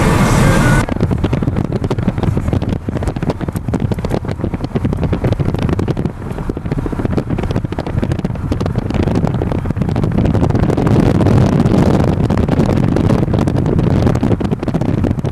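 Road and wind noise heard from inside a car at highway speed, a steady rumble with wind buffeting the microphone. Music cuts off about a second in.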